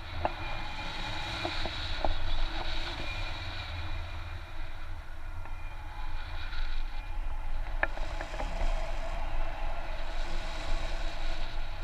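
Wind rushing over a camera microphone in paraglider flight: a steady low rumble and rush of air, with a few faint clicks.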